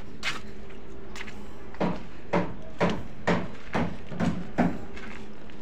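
Footsteps walking on a gritty concrete floor, about two steps a second, over a faint steady hum.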